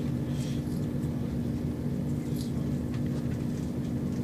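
Cabin noise inside a Chiltern Railways class 168 diesel multiple unit rolling slowly along a station platform: a steady diesel engine hum and low rumble, with a few faint short clicks.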